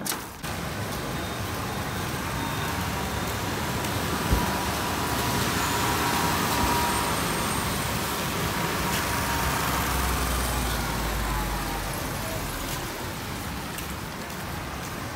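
Street traffic passing close by on a wet road: vehicle engines running and tyres hissing, swelling louder through the middle and easing off toward the end.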